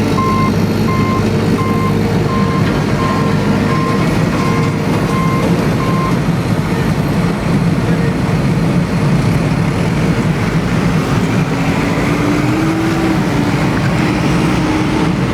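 A vehicle's reversing alarm beeping at an even pace, about one and a half beeps a second, over steady engine noise; the beeping stops about six seconds in while the engine noise carries on.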